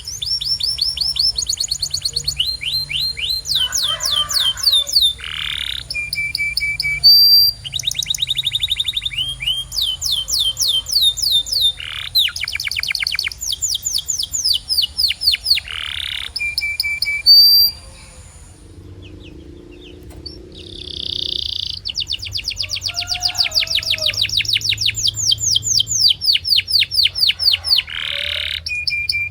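Domestic canary singing: long fast trills of rapidly repeated high notes, switching from one roll to the next with short breaks and a pause of about two seconds a little past halfway.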